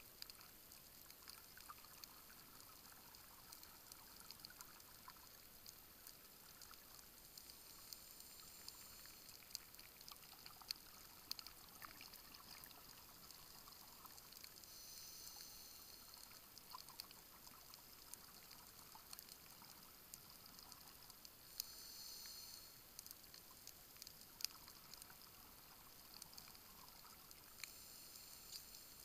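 Faint underwater sound of scuba breathing: bursts of bubbling hiss from a regulator's exhaled air, four times, about every six to seven seconds, with scattered small clicks between.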